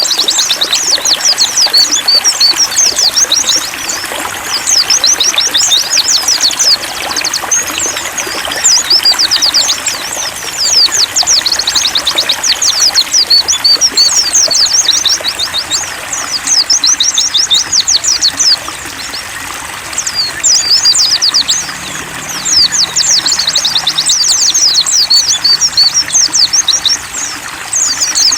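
Pleci (white-eye) birdsong: rapid, high, twittering chirps in bursts of several seconds with short pauses, over a steady trickle of running water.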